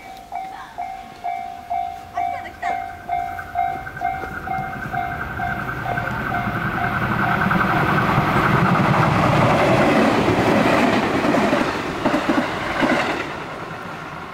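Japanese level-crossing warning bell dinging about twice a second while a JR West 221 series electric train passes over the crossing. The train's running noise builds to a loud rush, with wheels clacking over rail joints near the end, then falls away sharply as the last car clears.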